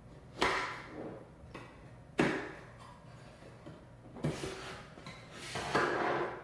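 Parts of a mini PC case and its hard-drive caddy being handled: four sharp clacks, each trailing into a short sliding scrape, the last scrape longer.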